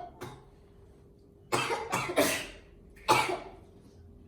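A woman coughing: a short cough at the start, a quick run of three coughs about a second and a half in, then one louder cough about three seconds in.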